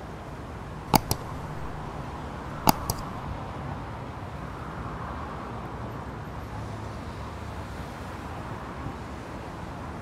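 Steady outdoor background noise with distant traffic, broken by two sharp double clicks, one about a second in and one near three seconds in. No duck calls.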